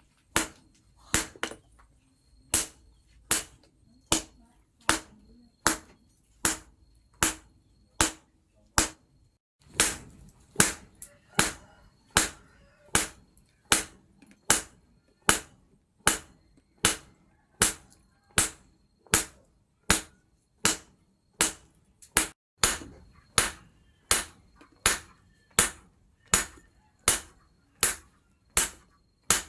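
Hammer blows on steel on an anvil in a steady rhythm, a little over one strike a second, each with a short metallic ring, as the steel bar is forged into a knife blade. There is a brief pause about nine seconds in.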